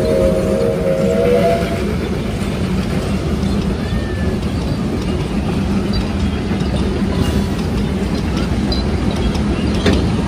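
NG129, a Garratt narrow-gauge steam locomotive, sounding its chime whistle, a steady chord of several tones that cuts off about a second and a half in. This is followed by the steady rumble of narrow-gauge carriage wheels passing on the track, with a sharp clank just before the end.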